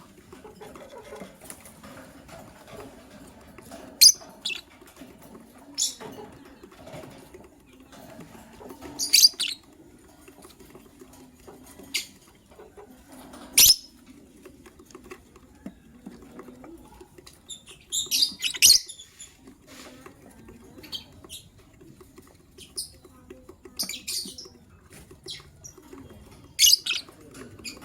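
Lovebirds calling with short, shrill chirps in scattered bursts every few seconds.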